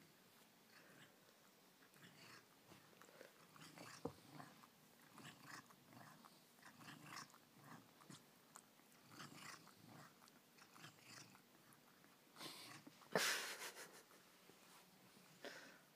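Cat licking a person's hair: many short, faint, wet strokes of its tongue, one after another, with a louder rustling burst about thirteen seconds in.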